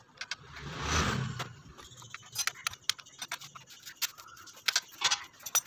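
Metal clicks, ticks and scrapes of a hand tool working at the underside of a Vespa SXL scooter's engine during an oil change, coming quickly in the second half. About a second in there is a brief rushing swell.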